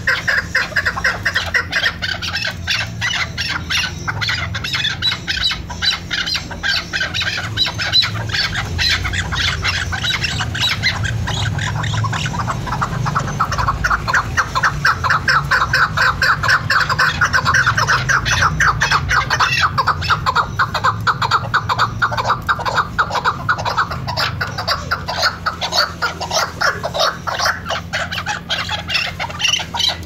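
Chukar partridges calling: a continuous, rapid run of short clucking chuck notes, several a second, loudest around the middle.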